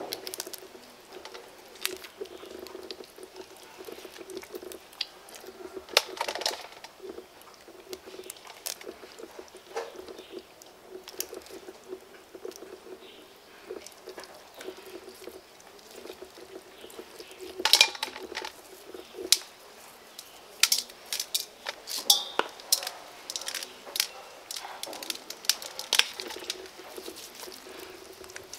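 Hands tearing and pulling apart fried rat meat over a steel basin: wet tearing and squelching with many short sharp crackles and clicks, thicker and louder in the second half. A faint steady hum runs underneath.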